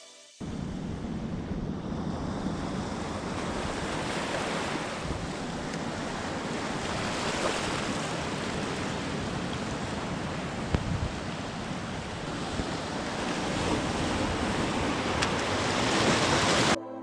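Sea surf washing over a rocky, kelp-covered reef, with wind buffeting the microphone. It cuts in about half a second in and stops suddenly just before the end.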